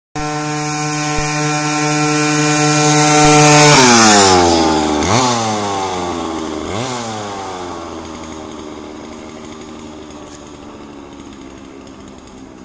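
Yamaha KT100S two-stroke kart engine in a one-third-scale model motorcycle, held at high steady revs and growing louder as it approaches, loudest about four seconds in. Its pitch then drops as it passes and pulls away, rises briefly twice, and fades into the distance.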